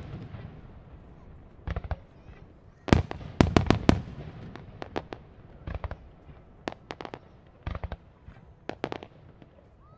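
Aerial fireworks shells bursting: a single bang, then a loud rapid cluster of bangs about three seconds in, followed by scattered single and paired reports that thin out toward the end.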